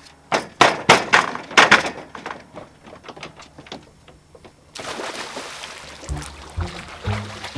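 A quick run of sharp knocks or cracks, then fainter clicks, followed by a steady rushing noise that starts suddenly about two-thirds of the way in, with music coming in near the end.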